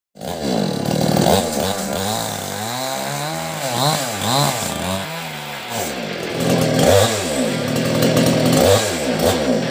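Two-stroke chainsaw engine revved up and down repeatedly, its pitch rising and falling several times, starting abruptly.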